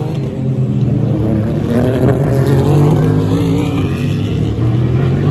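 Race car engines at high revs accelerating along the track. The pitch climbs steadily, drops briefly at upshifts about two seconds in and again near the end, then climbs again.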